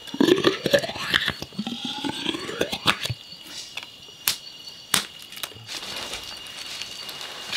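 Wet squelching and scraping as thick cooked mash is pushed out of a bamboo tube onto banana leaves, with squeaky rising and falling tones in the first three seconds, then a few sharp taps.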